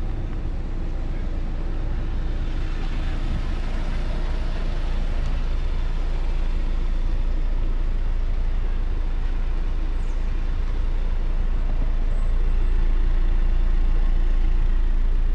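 Cadillac CT5 350T's 2.0-litre turbocharged four-cylinder idling steadily, a low even hum, a little louder in the last few seconds as the microphone nears the exhaust tip.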